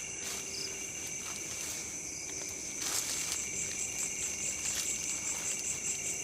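Night insects calling: a steady high-pitched trill of crickets, joined about three seconds in by a higher, evenly pulsing chirp repeating several times a second.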